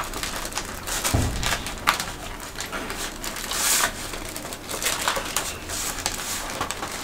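Aluminium foil crinkling and rustling, with a steel spoon clinking and scraping against steel bowls as chicken curry is ladled into foil containers. The sounds are irregular handling noises, with a sharp click about two seconds in.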